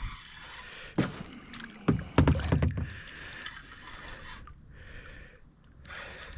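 Knocks and thumps on a kayak hull with water sounds, as a hooked largemouth bass is fought close to the boat. A few short metallic clinks come near the end.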